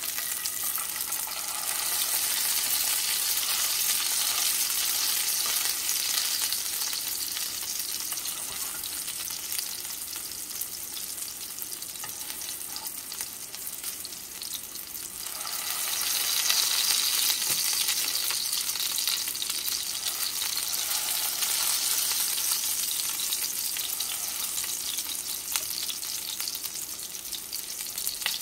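Beef-mince chapli kebabs sizzling as they shallow-fry in a little oil in a frying pan. The sizzle swells about two seconds in and again suddenly about halfway through.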